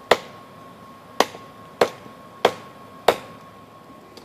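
Hammer blows on hot steel over an anvil, as an old adjustable wrench is forged into a knife blade: five sharp ringing strikes, roughly one every half second to second. A thin steady whine runs underneath and stops near the end.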